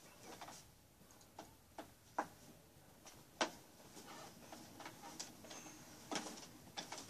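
Scattered small clicks and knocks of someone moving about a room and handling things, with one sharper click about three and a half seconds in.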